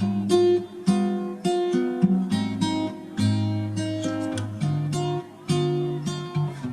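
Background music: an acoustic guitar playing a run of plucked and strummed chords.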